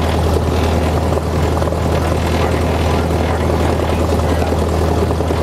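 Cessna 172's piston engine and propeller running at low power, heard from inside the cockpit as a steady low drone.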